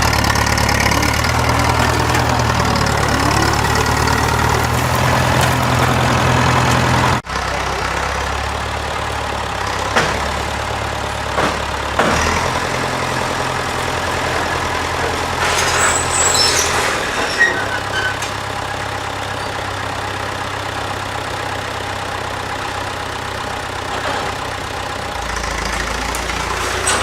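An engine idling steadily. The sound cuts off sharply about seven seconds in, then the engine carries on lower, with a few sharp knocks and some high squeaks.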